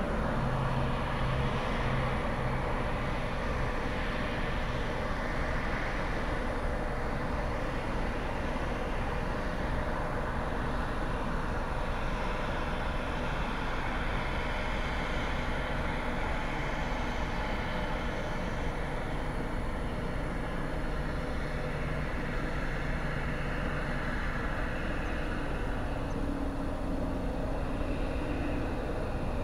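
Jet airliner engines running steadily, with a faint high whine that slowly falls in pitch midway.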